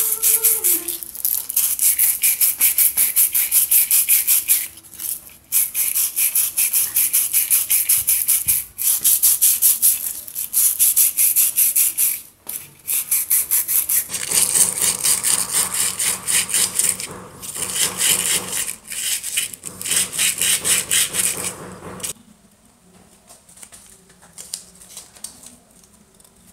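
Sandpaper rubbed rapidly back and forth on the wooden handle of a vintage Miller Falls hand drill: a fast rasping rhythm of several strokes a second, broken by a few short pauses. The strokes grow fuller about halfway through and stop a few seconds before the end.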